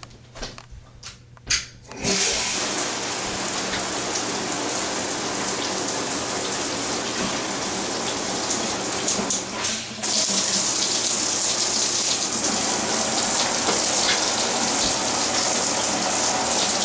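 A few small knocks, then about two seconds in the water comes on: a Delta In2ition 2-in-1 shower head spraying with a steady hiss. The spray falters briefly about ten seconds in, then comes back a little louder.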